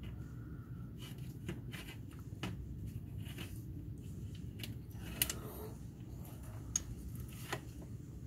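Faint handling noise: scattered light clicks and taps over a low steady rumble, with a sharper click about five seconds in and another near seven seconds.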